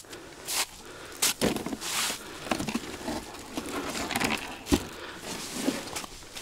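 Irregular crunching, crinkling and rustling with scattered knocks as gear is handled on ice and snow, with a dull thud near the end.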